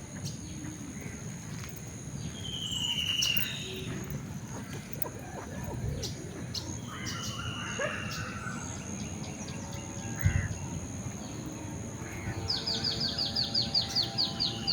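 Birds calling in outdoor ambience: scattered short whistled notes, then near the end a fast run of repeated chirps, over a steady high insect-like drone.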